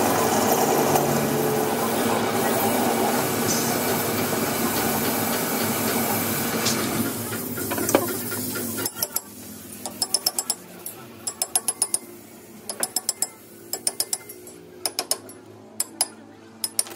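Metal lathe running and cutting a steel workpiece, a steady dense machining noise that dies away about eight seconds in. Then come short bursts of quick metallic clicks, several to a burst, as the four-jaw chuck is worked with a hand tool.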